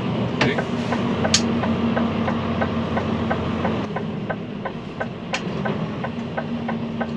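Cab of a DAF XD truck on the move: its 11-litre PACCAR diesel running with a steady low hum, while the turn signal ticks evenly about three times a second. A few sharper clicks stand out over it.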